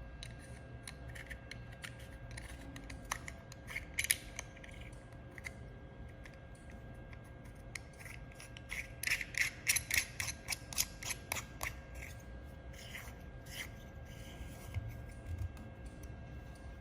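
Scattered small clicks and light rubbing from handling the laser welder's protection lens and its small metal parts, busiest in a quick flurry about halfway through. Under it runs a steady machine hum.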